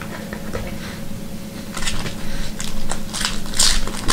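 Foil trading-card pack wrapper crinkling as it is torn open by hand. The irregular crackles start about two seconds in and get louder toward the end, over a steady low hum.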